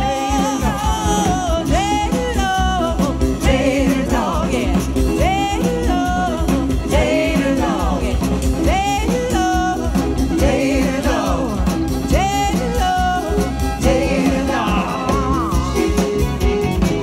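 Live band playing a song with singing over it: a diatonic button accordion, electric bass, electric guitar, fiddle, drums and a rubboard (frottoir) worn as a vest.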